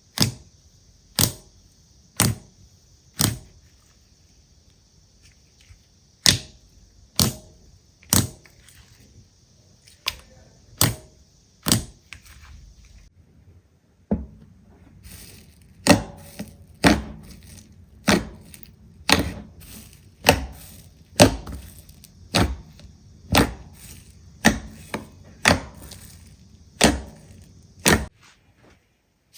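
Slime being pressed and handled, giving sharp pops or snaps about once a second, in short runs with pauses between them.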